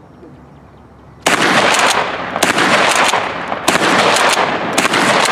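Mossberg 500 12-gauge pump-action shotgun firing slugs: four loud shots about a second apart, the first a little over a second in, with echo filling the gaps between them.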